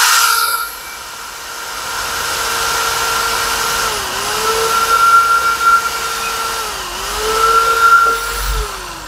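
Max MXD550 550-watt corded hammer drill running and boring into a wooden plank: a steady motor whine that briefly dips in pitch twice, then winds down near the end.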